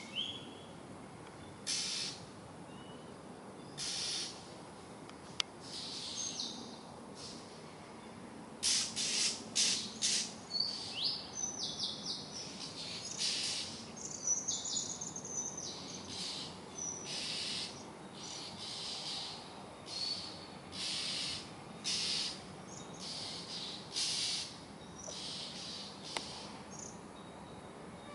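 Oriental magpie robin giving harsh, raspy calls mixed with short whistled notes, in irregular bursts that come thickest from about nine to sixteen seconds in. These are scolding screams of a bird that the uploader takes to be frightened.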